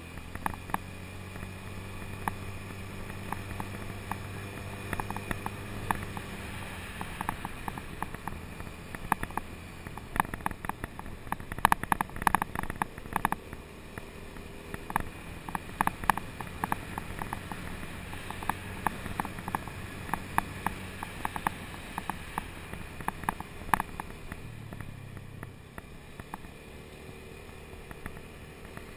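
Motor scooter riding along a concrete road: the engine's low hum fades and returns as the speed changes, under a steady rush of road and wind noise. Many small sharp clicks and rattles run through it, thickest about midway.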